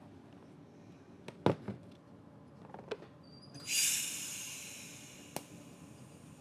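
A few sharp clicks and knocks of metal parts and the torch being handled. Then a TIG welding tack: a sudden bright hiss that fades away over about two seconds, over a low steady hum.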